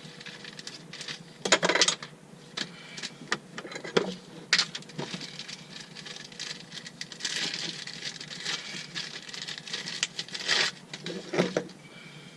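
Irregular clicks, knocks and rattles of small metal parts and hand tools being picked up and handled. A stretch of steadier scraping and rustling begins about seven seconds in.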